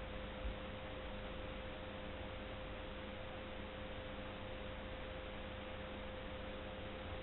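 Recording noise floor: a steady hiss with a constant electrical tone running through it, and one soft low thump about half a second in.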